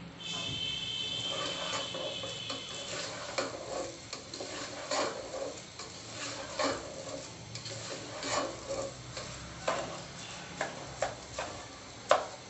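Soaked rice being fried in spice masala and stirred with a plastic slotted spatula in a pot: irregular scrapes and knocks of the spatula against the pot over a light sizzle, the sharpest knock near the end. This is the stage where the raw rice is fried until the grains turn loose and separate.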